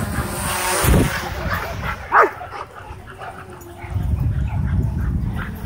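Dogs barking at a drone hovering low overhead, with two loud barks about one and two seconds in.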